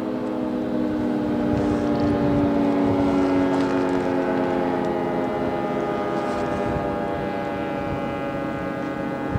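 Federal 3T22 three-tone civil defense siren sounding, a chord of several steady tones that sags slightly in pitch.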